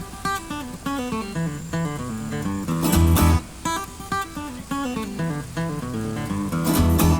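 Background music: a country-style tune led by plucked acoustic guitar, with a steady beat and bass notes.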